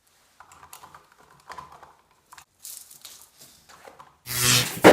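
Light crinkling, tearing and tapping handling sounds of hands working wires and electrical tape at an outlet box. Near the end comes a sudden loud, noisy burst.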